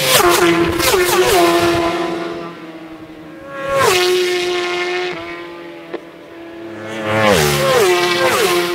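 Superbike racing motorcycles passing at full race speed in three waves: several bikes at the start, a single bike about four seconds in, and more bikes near the end. Each engine's high note drops sharply in pitch as it goes by.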